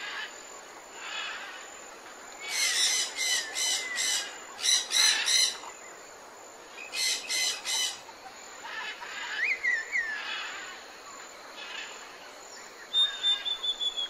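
Tropical forest birds calling: loud bursts of quickly repeated calls a few seconds in and again in the middle, then scattered chirps and a high whistled note near the end.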